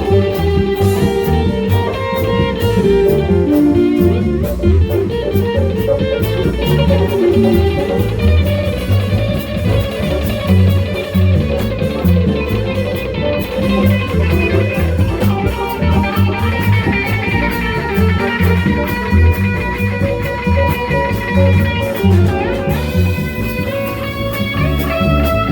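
Small jazz combo playing a standard: an electric guitar takes the lead line over bass and a drum kit keeping time on the cymbals.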